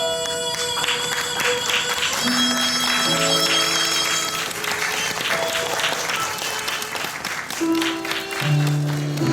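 Audience applauding over the show's instrumental curtain-call music, which plays long held notes that change pitch every second or two. The clapping starts about a second in and thins out near the end.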